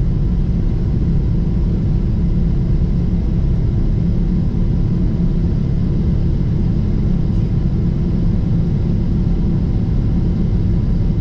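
Boeing 777-300ER cabin noise: the jet engines and airflow make a steady, loud low rumble heard from inside the cabin.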